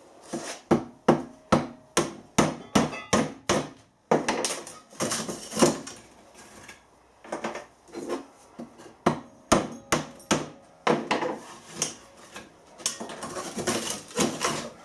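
A steel bar knocking and levering the ceramic honeycomb blocks out of a cut-open diesel particulate filter's steel can. Sharp knocks come about three a second, with stretches of scraping and grating in between.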